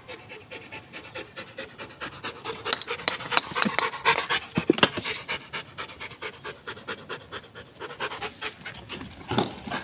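Rottweiler panting rapidly right at the microphone, loudest in the middle of the stretch.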